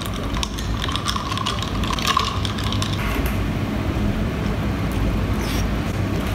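Sparkling water fizzing in a glass mason jar: a dense, fine crackle of popping bubbles that fades out about three seconds in.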